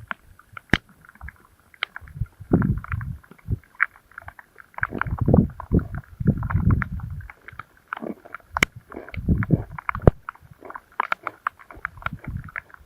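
Close handling and movement noise: irregular low rumbles and bumps with many sharp clicks and crunches.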